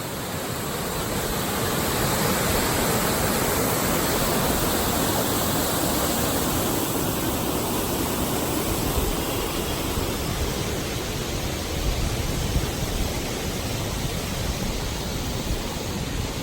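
Steady rushing of flowing water, swelling over the first two seconds and then holding even.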